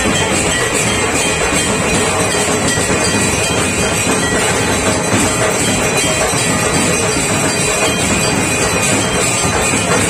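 Loud music, heard as a dense, unbroken wash of sound.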